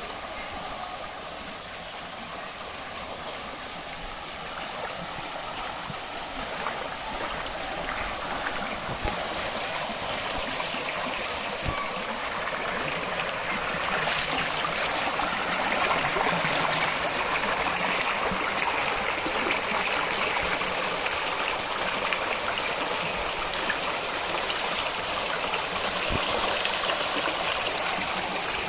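Stream water flowing in a steady rush that grows louder about halfway through.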